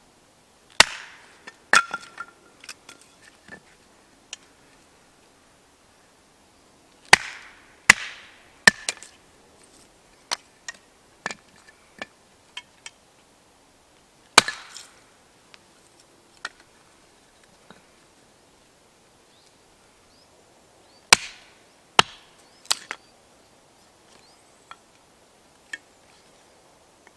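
Firewood being chopped: sharp wooden knocks in clusters of two or three blows, with smaller knocks in between and short pauses between clusters.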